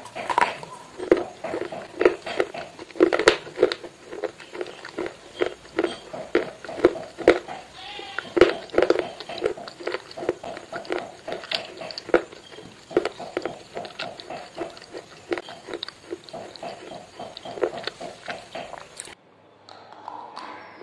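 Close-up biting and crunchy chewing of a hard, brittle food: a run of crisp crunches, a few a second, that cuts off suddenly near the end.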